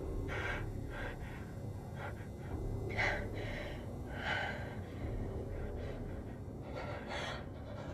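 Several sharp breaths and gasps from people coming to inside metal bucket helmets, over a steady low hum.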